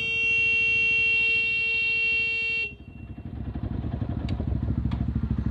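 Motorcycle engine idling with a fast low pulse, under a single steady horn blast that cuts off suddenly about two and a half seconds in; the engine then runs on alone.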